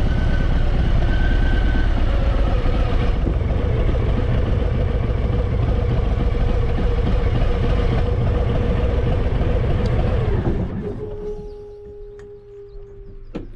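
Harley-Davidson Fat Boy V-twin motorcycle running under way, loud and steady with dense road noise. About ten and a half seconds in it drops away sharply as the bike stops, leaving a fainter steady tone until a click near the end.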